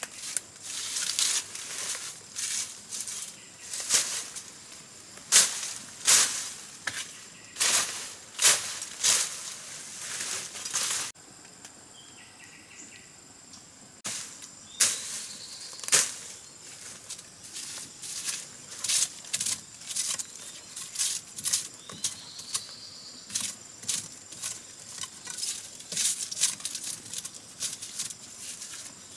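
Large taro leaves and stalks rustling and crunching as they are handled in dense undergrowth, in irregular sharp crackles. The crackling drops away for about three seconds near the middle, then starts again.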